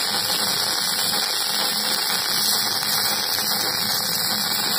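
Electric arc welding on a pipe fitting: the arc gives a steady hiss, with a faint low hum underneath.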